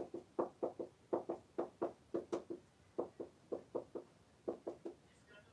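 Marker squeaking and scratching on a whiteboard in quick short strokes, about three or four a second, as letters and bond lines are written. There is a brief pause near the end.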